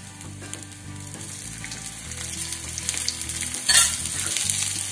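Dried coriander leaves and garlic sizzling in hot oil in an iron kadai while being stirred with a steel spatula, the leaves frying down to crisp. The sizzle grows louder through the second half, with one short loud scrape of the spatula against the pan about three and a half seconds in.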